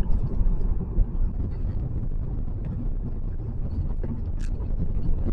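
Road noise inside a moving vehicle: a steady low rumble.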